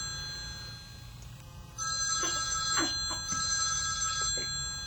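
Telephone ringing with a repeating electronic ring; after a pause, the ringing resumes about two seconds in.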